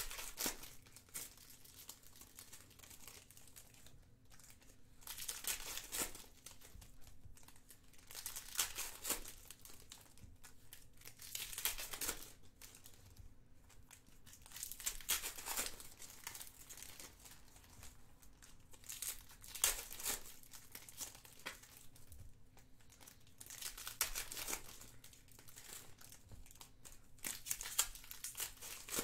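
Foil wrappers of Panini Prizm football card packs crinkling and tearing as the packs are ripped open and the cards pulled out. This comes in a run of short bursts every three to four seconds.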